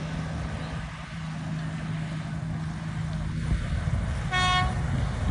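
Motorboat engine running steadily, with wind rumbling on the microphone. About four seconds in, a brief high-pitched tone sounds once.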